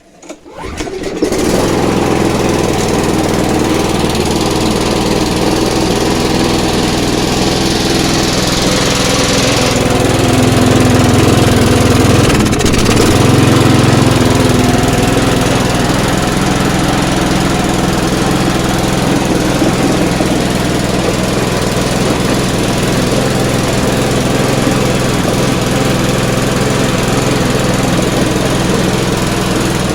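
Freshly rebuilt Mountfield self-propelled petrol lawnmower engine starting about a second in and then running steadily, a little louder for a few seconds in the middle. This is its first start after the rebuild, with fresh oil in.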